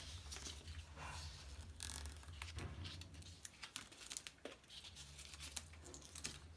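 Faint crinkling and tearing of handlebar tape being stretched and wound onto a road bike's drop bar, in irregular scattered rustles with a few small ticks.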